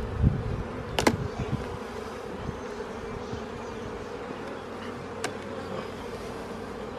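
Honeybees buzzing steadily around an open hive, a constant hum, with a couple of low thumps near the start and two sharp clicks, about a second in and near five seconds, as frames are worked loose.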